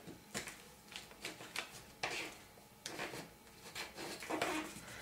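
Scrapbook paper being folded by hand and creased with a bone folder: faint, irregular rustles and short scrapes of paper.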